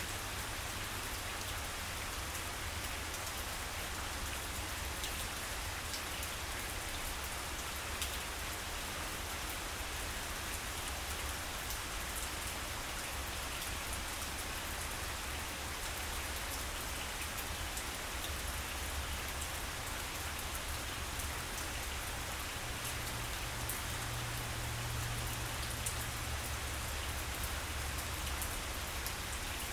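Steady rain falling on grass and ground, an even patter made up of many small drop ticks.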